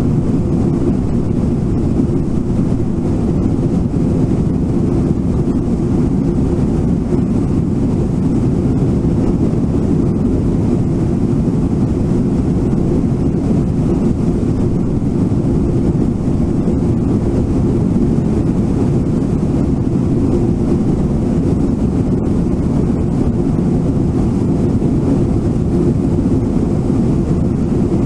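Waterfall and whitewater rushing, a steady low rumble without a break.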